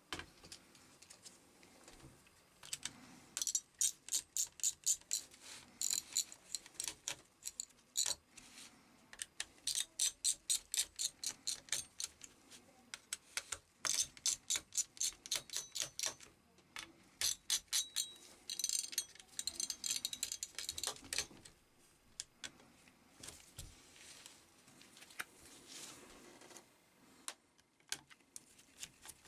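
A small screwdriver unscrews the heatsink and fan screws on a laptop motherboard. It makes runs of rapid light ticking clicks, several bursts of a second or two each, with short pauses between them.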